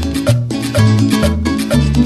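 Latin dance music with a steady beat and a repeating bass line.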